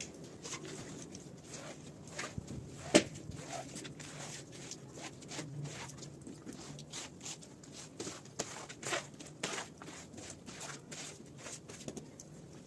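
Irregular short strokes of a hand cleaning tool worked across a wet rug, with one sharp knock about three seconds in.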